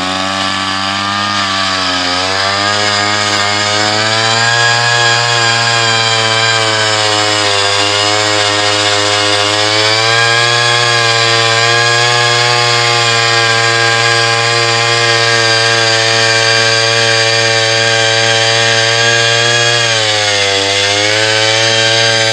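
Gas-powered two-stroke ice auger running at full throttle, boring into lake ice. The engine climbs in pitch over the first few seconds, holds steady with small wavers as the bit cuts, and sags briefly near the end.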